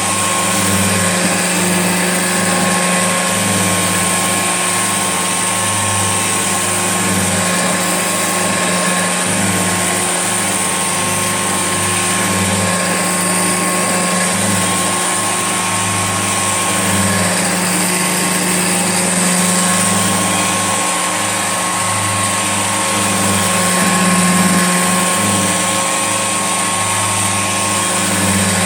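Old Hoover Junior upright vacuum cleaner running steadily: a constant motor hum with a thin high whine over it.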